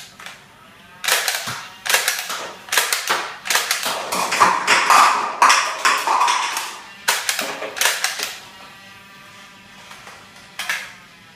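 Nerf Stockade foam-dart blaster firing a string of shots, each a sharp snapping click, with cups being struck and tumbling onto the counter. About ten clicks and knocks come in quick succession, thickest in the middle, and one more comes near the end.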